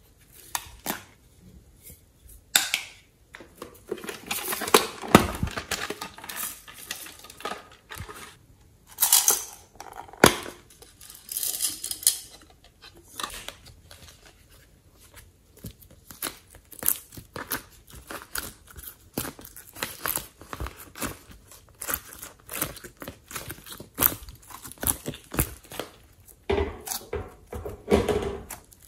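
Close-up handling of slime-making materials: irregular clicks and taps of plastic pieces and trays, with crinkly tearing noises, and sticky squishing of soft clay and slime pressed together near the end.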